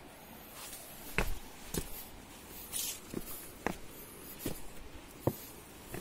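Footsteps on rocky ground: about half a dozen uneven steps and scuffs, each a short sharp knock, the loudest just after a second in and again near the end.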